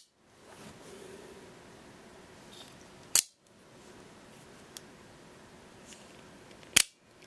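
Microtech out-the-front automatic knife being cycled: two sharp metallic snaps about three and a half seconds apart as the spring-driven blade fires and locks.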